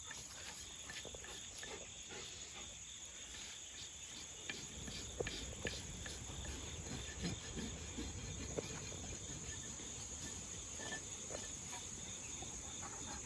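Steady high-pitched insect chorus, like crickets, with scattered faint clicks and knocks and a low rumble that comes in about four and a half seconds in.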